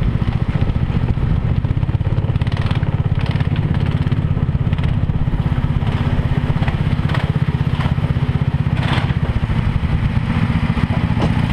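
Go-kart engine running at low revs, a steady rapid low pulsing, as the kart rolls slowly through the pits. A few short clicks sound over it.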